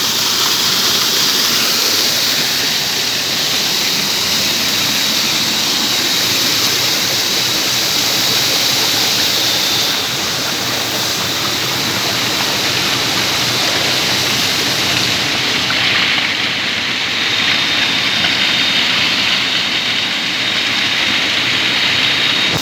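Waterfall rushing loudly and steadily, a dense hiss of falling water. A thin, steady high-pitched tone sounds over it, clearer in the second half.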